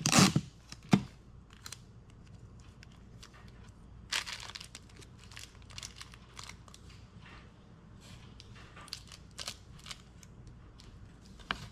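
Clear tape pulled off a desk tape dispenser, the loudest sound, with a sharp snap about a second in as it is cut on the teeth. Then scattered rustling and crinkling of paper cards and plastic candy wrappers as they are handled, with a louder rustle a little after four seconds.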